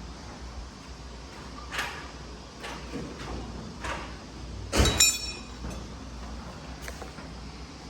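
Scattered knocks of metal being handled, with one loud metal clank about five seconds in that rings briefly.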